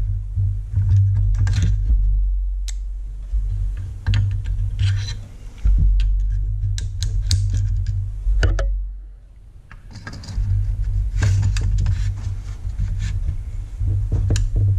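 Metal clicks and clacks as an AR-15 bolt carrier group, fitted with a GO headspace gauge, is handled and slid into the upper receiver, over a steady low hum.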